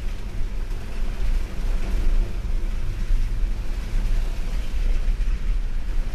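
A vehicle driving: a steady, low engine and road rumble, with a rough, fluttering noise over it.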